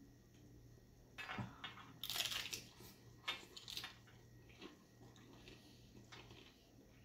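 Crisp taco shell crunching as it is bitten and chewed: a run of loud crunches from about one to four seconds in, then a few fainter chewing crunches.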